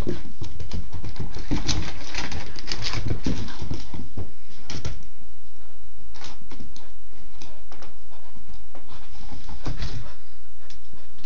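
A young Shiba Inu's claws clicking and scrabbling irregularly on a hardwood floor as it dashes after a laser dot, with scattered knocks.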